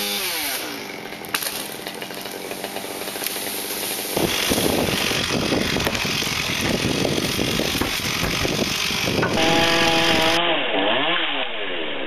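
Gas chainsaw running up in a tree, cutting wood, its engine note falling and climbing again several times as the throttle is let off and squeezed.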